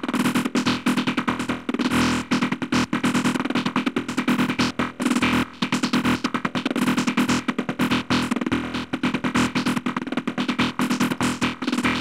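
Psytrance-style synth sequence from a Serum wavetable patch looping as a rapid run of short, chopped notes, its tone moving as LFOs sweep a band-pass filter and the pan.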